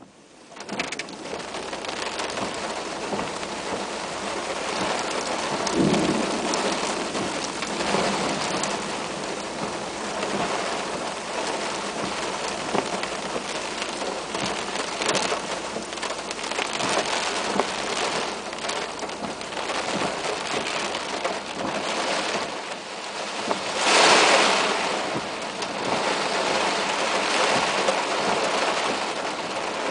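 Heavy rain drumming on a car's windshield and roof, heard from inside the car as a steady dense patter, with one louder swell of rain about four-fifths of the way through. No thunder.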